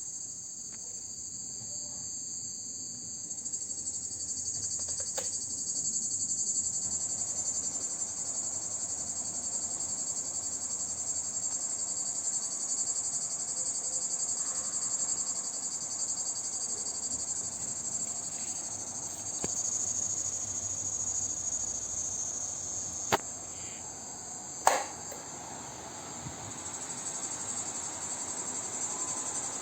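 Crickets chirping in a steady, high continuous trill, over a low steady rushing noise that swells a few seconds in. Two sharp clicks near the end, about a second and a half apart.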